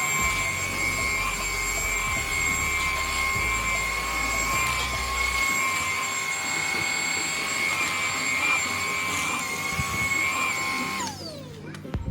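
Dibea F20 Max cordless stick vacuum's brushless motor running at a steady high-pitched whine. About eleven seconds in it is switched off and the whine falls in pitch as the motor winds down.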